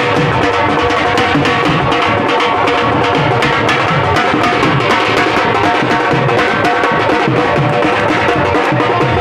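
A steel-shelled dhol drummed with fast, steady strokes, with a held tone sounding over the beat.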